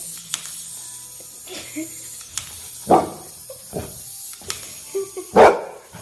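Several short, breathy animal sounds over a steady background hiss, the loudest about five and a half seconds in.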